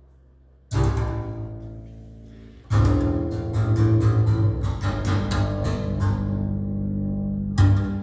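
Recorded music with plucked guitar and deep bass notes played through loudspeakers driven by a prototype single-ended valve power amplifier under audio test. A low steady hum sits under it at the start. The music enters with a loud struck note that dies away about a second in, and comes back fuller with quick plucked notes a couple of seconds later.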